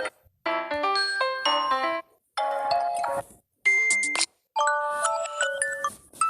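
Samsung phone ringtones previewed one after another: four short melodic snippets of chiming electronic tones, each cut off abruptly by a brief silence before the next one starts.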